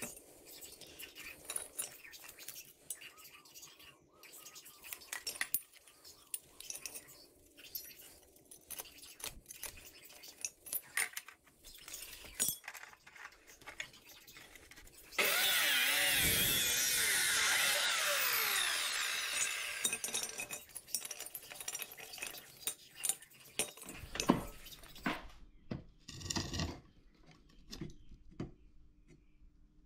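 Steel pieces clinking and knocking as they are handled, then an abrasive chop saw starts abruptly about halfway through and cuts steel for about four seconds. Its whine falls as it winds down, followed by more scattered knocks.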